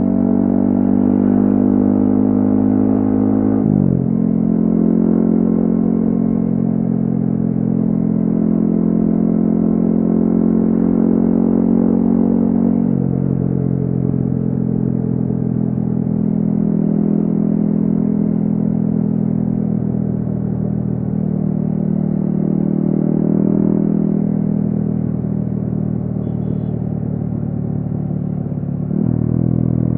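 Yamaha XSR155's single-cylinder engine running through a DIY exhaust while cruising. About four seconds in, the engine pitch drops sharply as a gear is shifted up. After that the pitch eases down and rises again with the throttle, then jumps up near the end.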